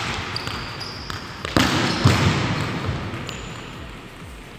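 A football being kicked and hit, with two heavy thuds about one and a half and two seconds in.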